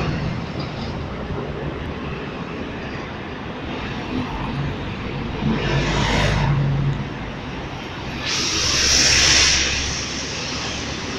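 Road traffic on a busy city avenue: engines and tyres of passing cars and buses. The sound swells twice, most loudly about eight to ten seconds in as a city bus drives past close by.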